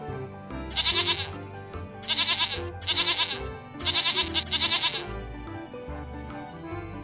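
Goat bleating five times in quick succession over background music.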